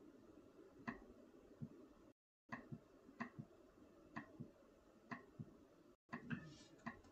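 Near silence: low room tone with faint, sharp clicks at uneven intervals, roughly one a second, and two brief dead gaps in the sound.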